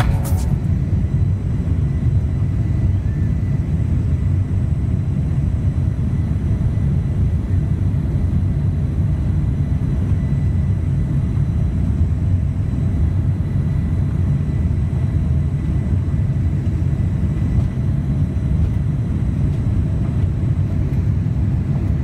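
Jet airliner's engines at takeoff power, heard from inside the passenger cabin during the takeoff roll and liftoff: a steady loud rumble with a faint high whine.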